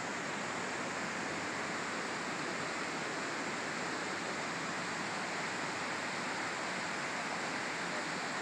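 Steady rushing of flowing water, an even noise that neither swells nor breaks.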